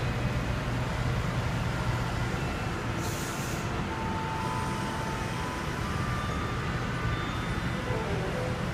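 Mercedes-Benz C63 AMG's V8 engine running with a steady low rumble, with a short hiss about three seconds in.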